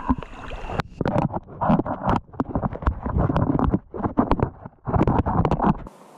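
Water sloshing and knocking against an action camera as it is dipped and moved underwater in a shallow river: muffled irregular bumps and clicks over a low churning rumble. Near the end it cuts off suddenly to a faint steady hiss.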